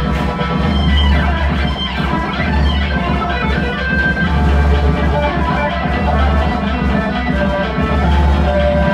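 Live rock music: guitar and drum kit over heavy, sustained bass notes, played loud and without a break.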